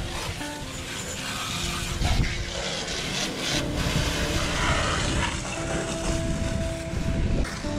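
Long-handled deck brush scrubbing a sailboat's wet deck, over a steady low rumble.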